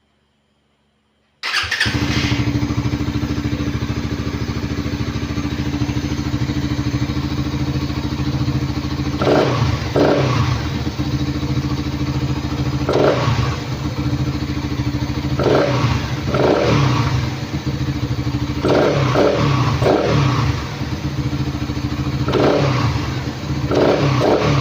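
Suzuki Raider 150 motorcycle engine starts up about a second and a half in and idles steadily, then is revved in a series of short throttle blips from about nine seconds in.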